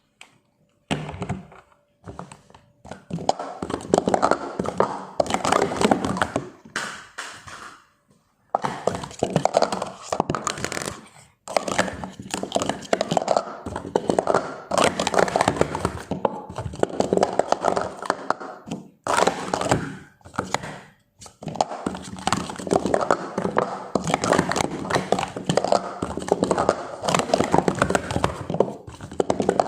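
Hard plastic cups clattering and tapping against each other as they are handled, in busy runs of several seconds with short pauses between.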